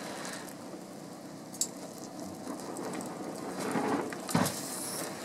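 Quiet, steady background hiss with two short knocks, a faint one about a second and a half in and a louder one near the end.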